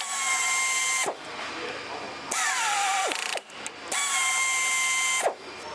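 Pneumatic tapping arm's air motor running in three short bursts of about a second each, a steady whine over air hiss, as it taps holes. In the middle burst the whine drops in pitch as the motor slows.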